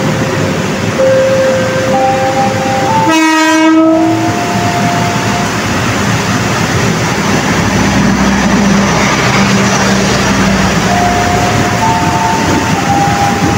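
Long-distance passenger train running fast through the station, a loud steady rush of wheels on rail, with a short horn blast about three seconds in. Near the end, a KRL Commuterline electric train pulling out adds a motor whine that shifts in steps.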